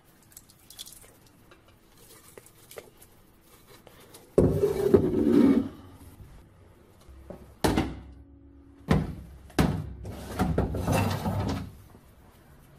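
Rusty steel M40 helmet being handled on a steel-topped workbench: a long loud scrape about four seconds in, then several sharp knocks and a stretch of scraping as it is picked up and turned.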